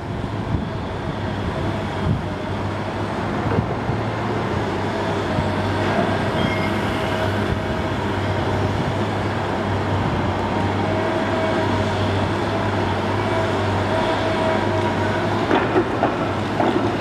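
High-reach demolition excavator's diesel engine running steadily under load as its attachment works at the top floor of a building, with a faint whining tone coming and going. A few knocks near the end.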